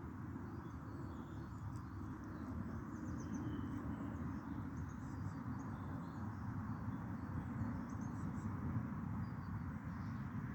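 Steady outdoor background noise with faint, scattered bird chirps and twitters.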